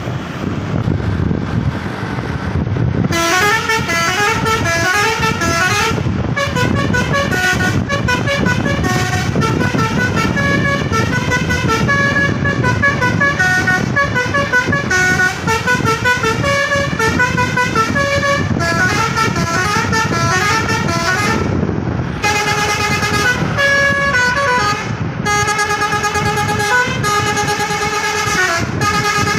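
Basuri telolet multi-tone bus horn playing melodies note by note, short stepped tones one after another, with a brief break about three-quarters of the way through before another tune starts. A steady low rumble runs underneath.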